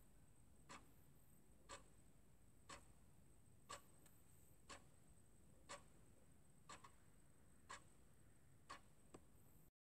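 Faint, regular ticking, about one click a second with an occasional extra click, over a faint steady high hiss. It cuts off just before the end.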